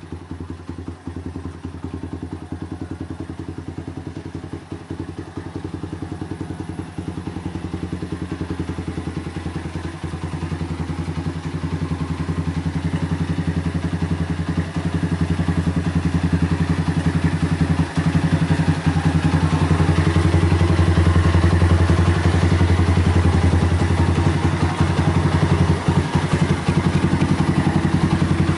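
Custom Honda Mega Pro bobber's single-cylinder four-stroke engine idling steadily with an even exhaust beat, growing gradually louder through the second half.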